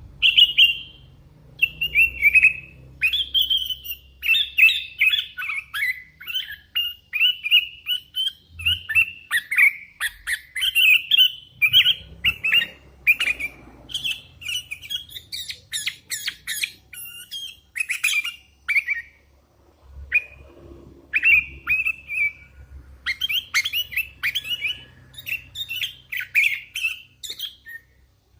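Hand-fed young sooty-headed bulbul (kutilang) calling busily: a quick run of short, sharp notes, many sliding downward, with a short pause about two-thirds of the way through.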